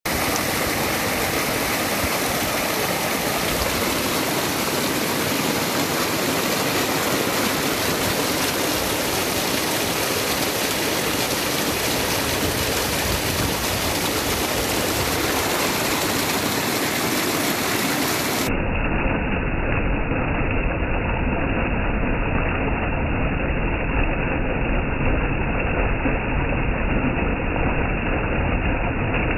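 Small mountain stream cascading over rocks, a steady rush and splash of water that turns duller and deeper about two-thirds of the way through.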